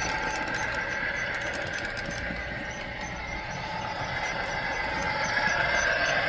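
Model Amtrak diesel locomotive's sound decoder playing its engine running sound, steady throughout, softening a little midway and swelling again near the end.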